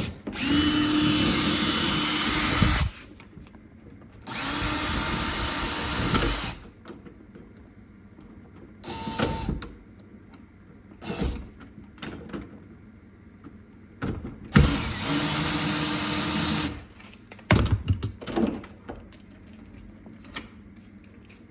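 Power drill fitted with a long bit running in three steady bursts of about two seconds each, unscrewing the old doorknob from the door. Short clicks and knocks come between the bursts.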